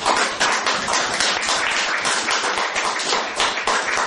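An audience clapping, with individual claps standing out.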